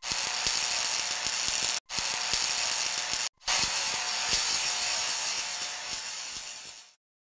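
Hissing, crackling noise with scattered clicks: an intro sound effect under the show's title card. It breaks off twice for an instant, a little under two seconds in and again at about three and a half, then fades out near the end.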